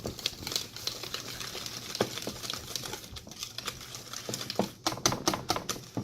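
A hand utensil beating a thick mix of sour cream and cream cheese in a bowl. It makes rapid, irregular clicking and scraping against the bowl, with sharper taps near the end.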